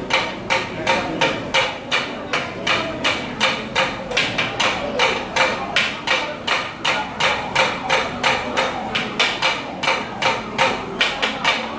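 Metal spatula chopping shawarma meat in a griddle pan: sharp metallic knocks in an even rhythm, about three a second.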